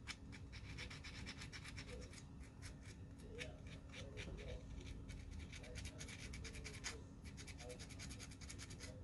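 Rapid, irregular small scraping and rubbing strokes of hand-shaping a tiny model-car mirror part.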